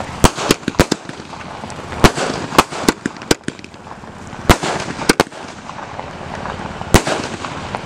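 A 500-shot aerial firework cake firing: about a dozen sharp bangs at uneven intervals, with a hiss of burning stars between them. The bangs thin out toward the end, the last coming about a second before it.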